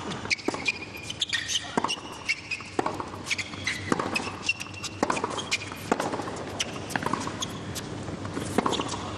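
Tennis rally on a hard court: a steady run of sharp racket strikes and ball bounces, one or two a second, with short high squeaks of players' shoes on the court between them.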